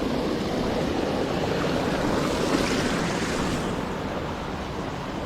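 Steady rush of flowing stream water, with wind rumbling on the microphone.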